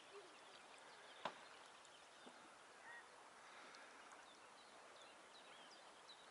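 Near silence: faint riverside ambience with scattered small bird chirps, and one sharp click about a second in.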